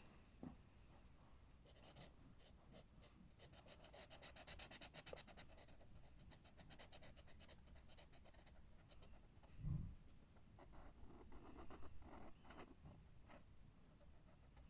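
Faint scratching of colouring strokes on a colouring-book page, in quick back-and-forth runs, with one soft thump about halfway through.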